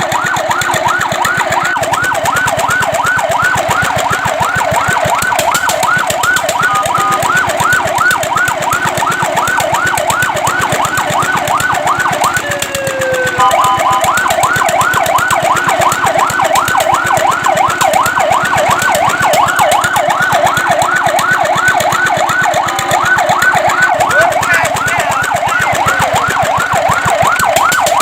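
Fire truck siren in a fast yelp: rapid rising sweeps about three or four a second. About halfway through the yelp breaks off briefly with a gliding tone, then starts again slightly louder.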